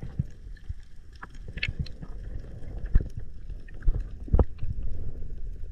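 Underwater sound picked up through an action camera's housing: a low rumble of water moving past, with scattered sharp clicks and dull knocks, the loudest about three and four and a half seconds in.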